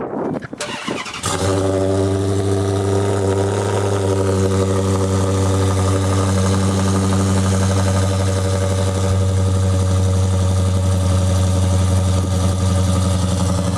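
2014 Dodge Charger R/T's cammed 5.7 HEMI V8 with Kooks long-tube headers being started for the first time since it was modified. It cranks briefly, catches about a second in, and settles into a steady, loud idle.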